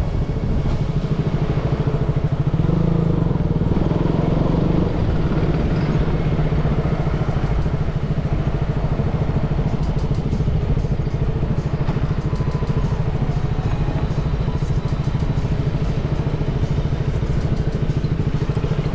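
KTM Duke 200's single-cylinder engine running steadily, a little louder about two to five seconds in.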